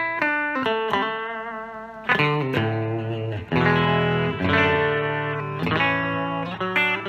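Electric guitar with a Humble Pickups Black-eyed Susan single-coil bridge pickup, played clean through a Fender Vibrolux Reverb amp. Picked notes are followed by strummed chords about two seconds in and again about three and a half seconds in, each left ringing.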